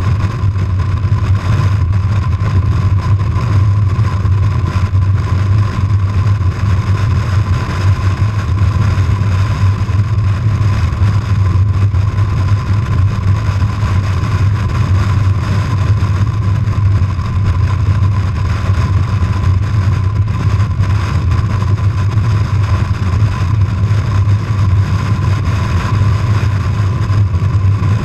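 Harley-Davidson FLHT touring motorcycle's V-twin engine running steadily at highway cruising speed, with wind rushing past. The level stays loud and even, with no shifts or revving.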